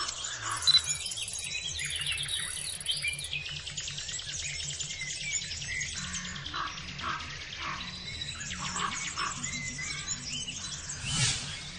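Birds chirping and tweeting in many short, quick calls, over faint background music.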